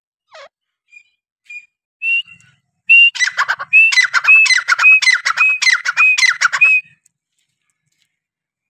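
Partridge calling: a few soft single notes, then a loud run of repeated calls from about three seconds in, each a short whistled note followed by a sharp falling note, about two a second, stopping suddenly just before seven seconds in.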